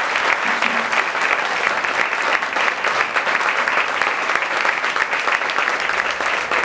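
Applause: a roomful of people clapping steadily, many hands at once.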